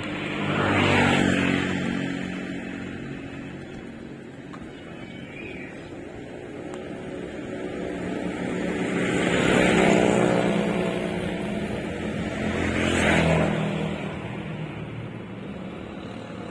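Motor vehicles passing by on a road one after another, each engine rising and fading away: one about a second in, a longer one building to around ten seconds, and another around thirteen seconds.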